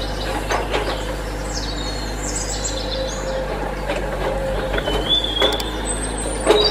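Small electric motors of a homemade toy excavator whirring steadily as its bucket scrapes into gravel, with scattered clicks of grit. Birds chirp in the background.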